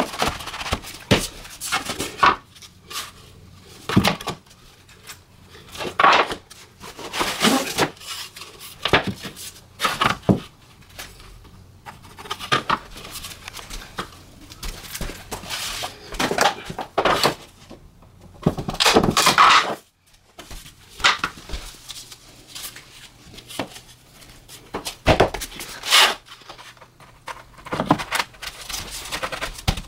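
Laminate flooring boards being handled and fitted: irregular knocks, clacks and scraping of the boards against each other and the floor.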